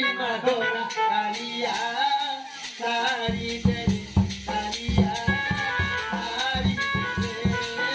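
Live folk dance music: a voice singing over high clicking percussion that keeps time. About three seconds in, a dhol, a two-headed barrel drum, joins with fast, heavy beats.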